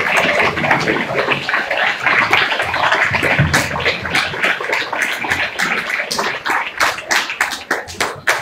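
Audience applauding, the dense applause thinning out to scattered separate claps near the end.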